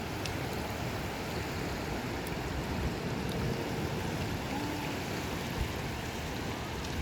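Steady wash of sea surf and wind at the shore, an even rushing noise with no distinct breaks.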